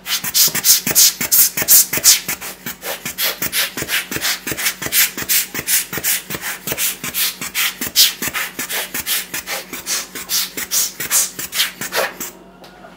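A brush scrubbing the dry cap of a large Scarletina bolete: quick, scratchy back-and-forth strokes, about four a second, which stop shortly before the end.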